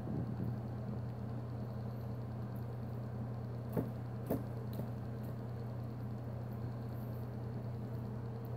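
Argentine black and white tegu eating chopped raw meat and greens from a tray: soft wet chewing, with two sharp clicks of its bites about four seconds in. A steady low hum runs underneath.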